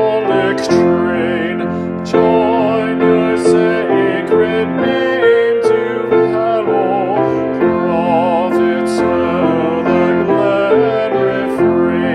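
A hymn sung by a voice with a wavering vibrato over steady keyboard accompaniment, held notes moving from one to the next in a slow, even tempo.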